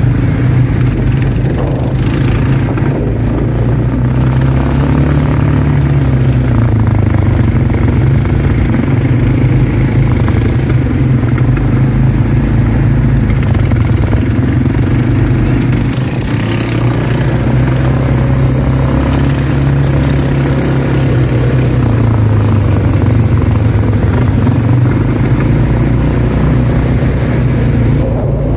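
ATV engine running steadily while riding, its pitch rising and falling slowly as the throttle changes. A few short bursts of hiss sound over it.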